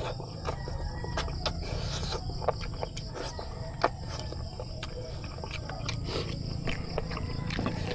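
Close-miked eating sounds of boiled chicken and rice eaten by hand: wet chewing and lip smacks with scattered sharp mouth clicks, the sharpest about four seconds in, over a steady low rumble.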